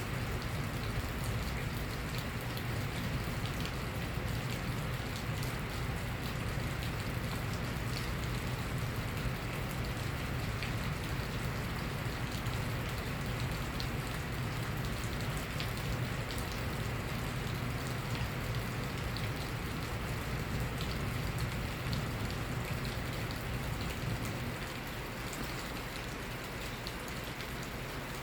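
Steady spring rain falling, an even hiss dotted with the ticks of individual drops hitting a surface. A low steady hum sits underneath and drops away about three-quarters of the way through.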